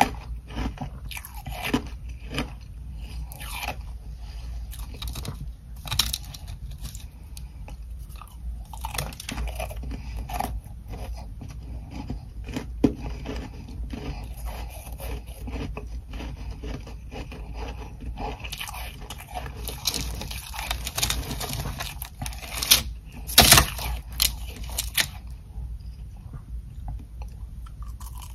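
Close-miked bites and chewing of ice chunks coated in soft frost: irregular crisp crunches, coming thick and loud near the end, over a faint low hum.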